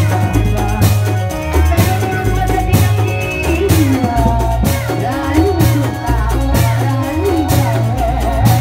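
Loud music for a reog street procession: a steady drum beat with a stepping bass line and a wavering melody line over it.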